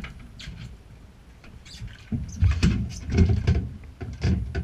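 Uneven low rumble of wind buffeting the microphone on an open boat deck, with scattered knocks and clatter, busiest from about two seconds in.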